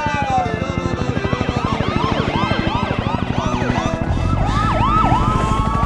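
Several police sirens yelping and wailing over one another, their pitch sweeping up and down a few times a second, over a fast rock beat.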